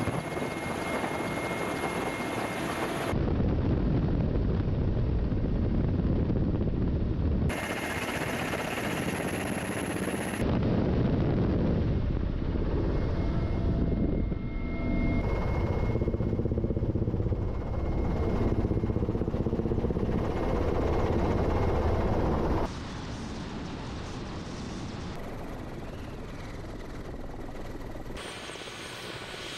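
Mil Mi-8/Mi-17 twin-turbine transport helicopter in flight: steady rotor and turbine noise heard from inside the cabin. The sound changes abruptly every few seconds as one clip cuts to the next.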